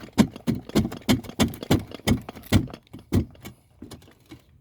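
Roof tiles knocking and clacking against each other as they are handled and slid up into place, a run of sharp hard clacks about three a second that thins out near the end.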